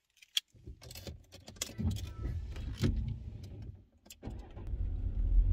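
Keys jangling and small clicks inside a car, over a low engine rumble; from about four seconds in a steady, stronger low rumble of the car under way.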